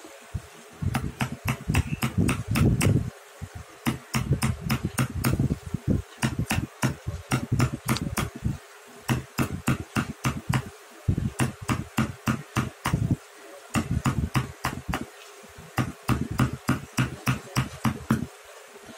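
Wood-carving chisel being struck to cut into carved wood: runs of sharp taps, about three or four a second, broken by short pauses.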